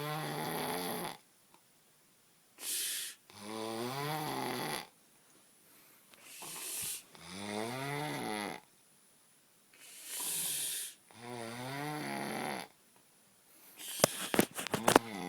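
A person snoring heavily. Each breath gives a drawn-out, moaning snore that rises and falls in pitch, with a shorter airy breath between snores, repeating about every four seconds. Near the end comes a quick rattle of sharp clicks.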